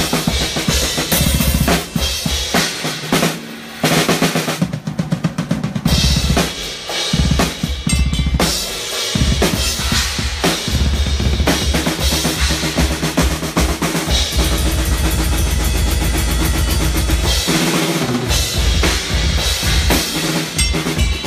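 Rock drum kit played hard during a sound check: rapid bass drum with snare and cymbals, with short breaks between fills.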